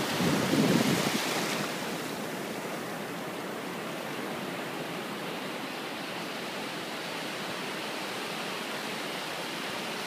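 Small ocean waves breaking and washing up the beach: a louder rush for the first second or so as a wave breaks close by, then a steady hiss of surf.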